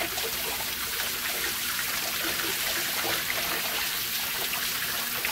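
Steady hiss of a water spray hitting a painted metal BMW M3 valve cover and splashing through a wire rack, warming the thermochromic paint so it changes colour.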